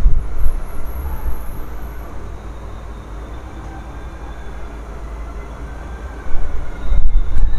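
Canon MP237 inkjet printer running a print-head cleaning cycle: a low mechanical rumble and whir, loud at first, quieter through the middle, and loud again about six seconds in.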